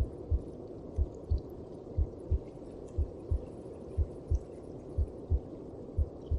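A mother's heartbeat as heard from inside the womb: low double thumps (lub-dub), about one beat a second, over a steady low whooshing.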